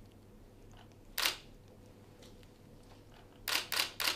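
Camera shutter firing: one shot about a second in, then three quick shots in a row near the end.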